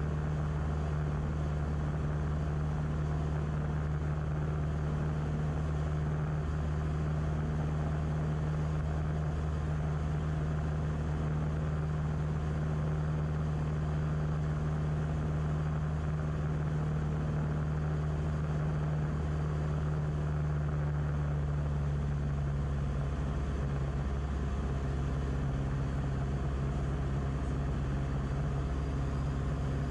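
Beechcraft Musketeer's piston engine and propeller droning steadily in flight, heard from inside the cockpit through a camera whose rattling prop filter muddies the sound. Its tone shifts slightly about three-quarters of the way through.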